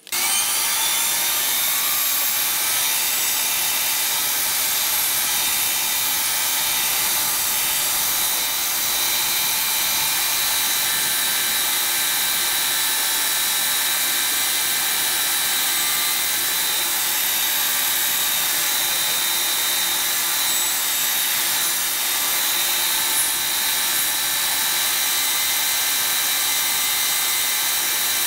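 Bench band saw running steadily, its blade cutting through a pine board, a constant high-pitched machine whine.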